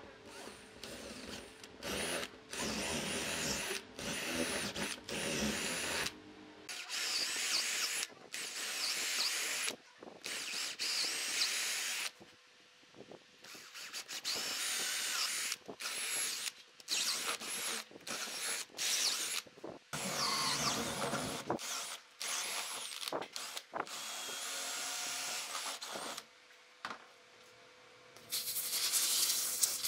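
Electric drill boring holes into a solid wood beam with a long twist bit, running in repeated stop-start bursts with a high motor whine as the bit chews out shavings. Near the end, a steady rustling of wood shavings being swept off the beam.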